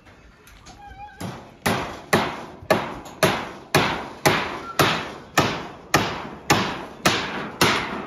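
Hammer blows on a corrugated iron roof, about two a second in a steady rhythm starting about a second in, each with a short metallic ring: nails being driven through the roofing sheets into the timber frame.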